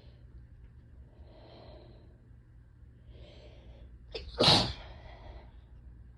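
One loud sneeze from a person with a head cold, about four seconds in, set off by a short sharp catch of breath. It comes after two soft breathy wind-up breaths and trails off quickly.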